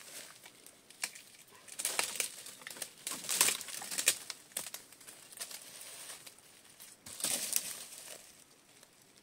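Tree branches rustling and thin twigs cracking as they are pulled and broken off by hand, in three bursts of crackling about two, three and a half, and seven seconds in.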